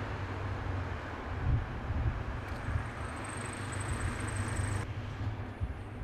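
Street ambience: a steady low rumble of passing traffic, with a faint high-pitched whine for about two seconds midway.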